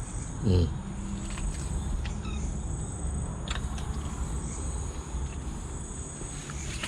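Crickets chirring in a steady, high, unbroken drone. About half a second in there is a short, low, voice-like sound, and a few faint clicks follow.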